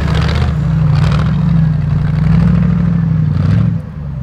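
Off-road trial truck's engine revving hard under load as it climbs a steep dirt slope, held at high revs for about three seconds, then easing off near the end.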